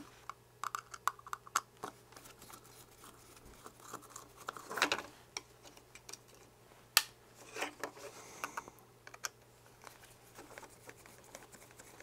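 Small screwdriver and fingers working a circuit board in a plastic camera housing: scattered light clicks and scrapes, the sharpest click about seven seconds in.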